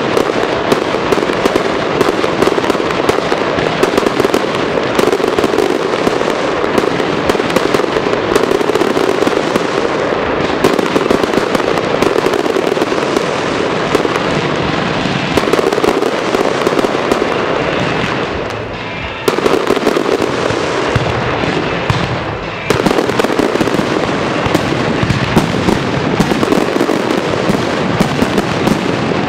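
Fireworks display: aerial shells bursting in a dense, near-continuous barrage of bangs and crackle, dipping suddenly twice past the middle.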